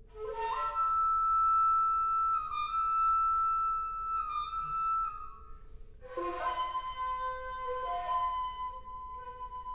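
Two shakuhachi, Japanese end-blown bamboo flutes, playing a slow duet. A long high note with slight pitch dips is held for about five seconds over a quieter low held note. About six seconds in, a breathy new entry leads to a second long note a little lower, with lower notes shifting beneath it.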